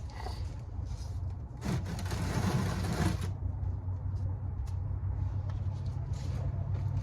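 Hands handling and threading a new spin-on oil filter into its housing, with a scraping, rustling stretch about two seconds in and scattered small clicks, over a steady low hum.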